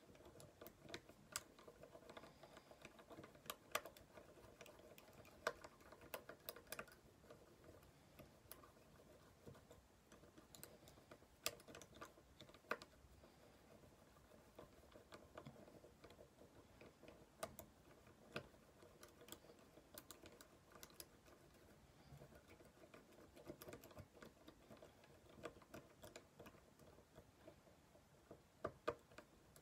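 Faint, irregular metal clicks and ticks from a lock-picking tool being worked in the keyway of an Ultion WXM euro cylinder lock.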